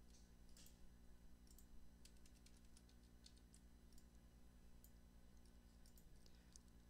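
Faint computer keyboard typing and mouse clicks, scattered and densest through the middle, over a steady low hum.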